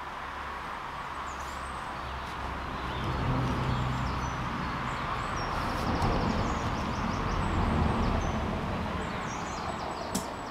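Outdoor ambience: small birds chirping over a steady low rumble, while a low engine hum swells through the middle and fades again. A single sharp click near the end.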